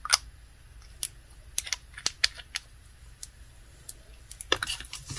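Scattered light clicks and taps from small glass nail polish bottles with plastic caps being handled: a bottle capped and set back into its foam tray, long artificial nails tapping against glass and plastic. The clicks come irregularly, a few each second, bunching up near the end.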